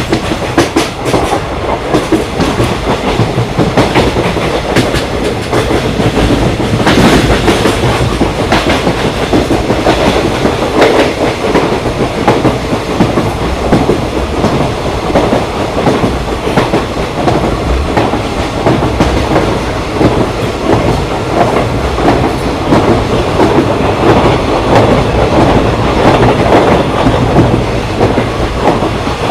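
Indian Railways ICF passenger coach running along the track: a steady rumble with repeated knocks of the wheels on the rails, a few stronger ones now and then.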